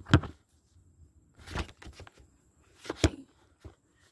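Handling noise of a phone being moved and propped against a riding mower's plastic body. There are a few sharp knocks and scrapes: one just after the start, a cluster about a second and a half in, and another sharp knock near three seconds.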